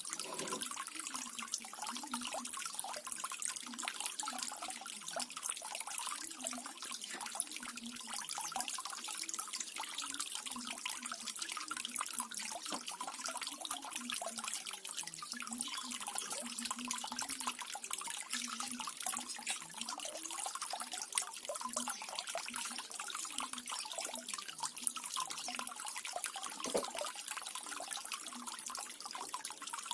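Small waterfall splashing and trickling steadily, a constant patter of drops over low bubbling.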